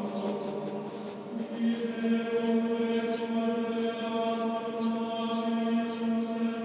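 Chanting voices in long held notes that change pitch about a second and a half in, with a pen scratching on paper in short strokes.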